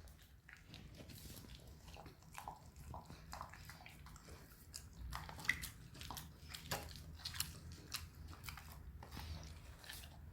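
A dog eating: faint, irregular wet clicks and smacks of its jaws and tongue as it chews and licks up food, several a second.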